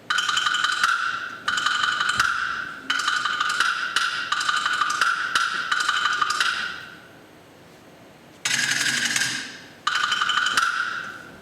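Music of wooden percussion clattering in fast, dense rolls of sharp clicks. It comes in several runs of one to four seconds, with a short quiet break partway through.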